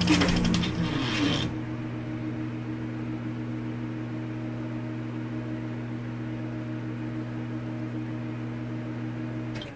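A burst of noise cuts off about a second and a half in, leaving a steady mechanical hum with a low droning tone that holds unchanged until it stops abruptly near the end.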